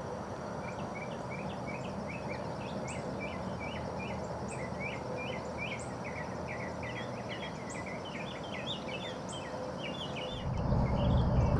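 Marsh ambience: birds chirping with many short, quick notes over a steady high insect drone. A low rumble comes in near the end.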